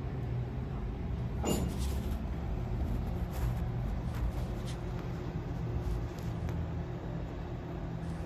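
A steady low hum and rumble, with one sharp knock about a second and a half in and a few faint clicks after it.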